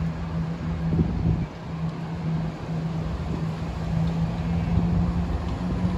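Diesel train approaching a level crossing, its engine giving a steady low drone, with strong wind buffeting the microphone.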